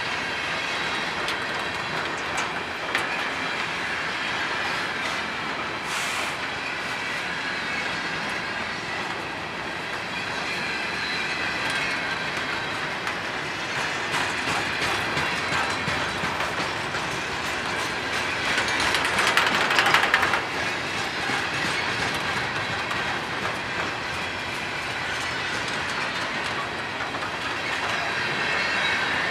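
Boxcars of a freight train rolling past at steady speed, wheels clicking over the rail joints under a continuous rumble and rattle of the cars. The wheel noise swells for a moment about two-thirds of the way through.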